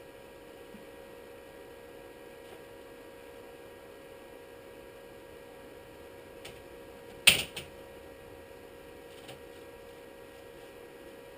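Steady faint hum of room tone, broken about seven seconds in by one sharp clack and a smaller one right after, with a few faint ticks around it.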